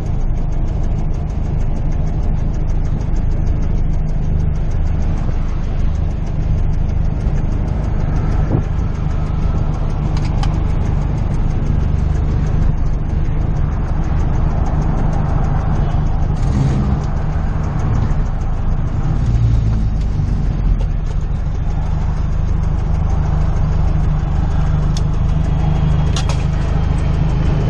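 VW Golf R32's engine running at a steady speed, a low, even engine note with little change in pitch.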